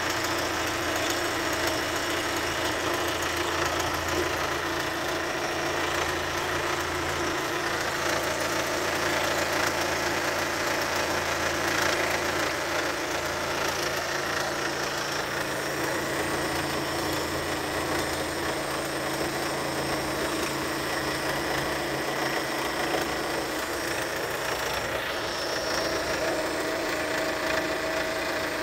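Chevrolet Winstorm's VCDi 16-valve diesel engine idling steadily.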